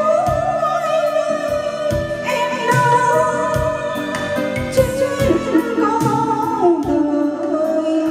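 Karaoke song with a singing voice holding wavering notes over a backing track with a steady beat, played loud through a pair of Amate N12Pro home karaoke loudspeakers, with the digital mixer set to its 'nịnh giọng' (voice-flattering) vocal preset.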